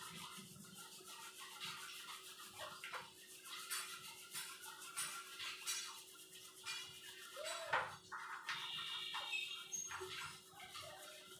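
Brushing and clinking of metal gas-stove burner parts being scrubbed clean: irregular short scrapes and knocks over a faint steady hum.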